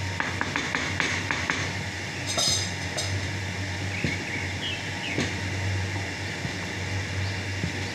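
Wooden paddles knocking and scraping against a large aluminium pot as thick harees (wheat and meat porridge) is stirred and beaten. There is a quick run of sharp knocks in the first second and a half and a brighter clink about two and a half seconds in, over a steady low hum.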